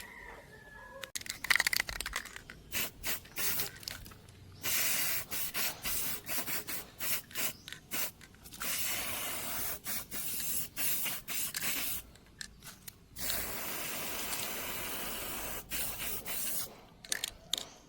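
Electric arc welding on a steel ladder frame: a crackling hiss in runs of a few seconds, broken by short gaps and stuttering restarts as the arc is struck and broken.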